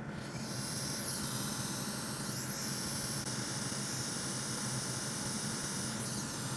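Hot-air rework station blowing a steady hiss of hot air onto a small chip on a circuit board, heating the flux and solder until the chip makes contact with its pads. The hiss comes on just after the start, over a low steady hum.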